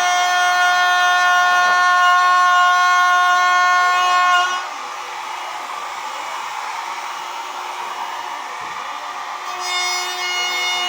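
A high-speed electric woodworking power tool whines steadily with a strong high-pitched tone. About four and a half seconds in, the whine gives way to a rougher noise for about five seconds as the tool cuts into the wood under load. It then whines freely again near the end.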